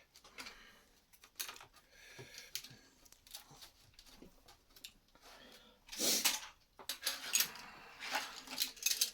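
Lego bricks clicking and rattling as pieces are handled, with scattered small clicks and a louder rattle about six seconds in and again near the end.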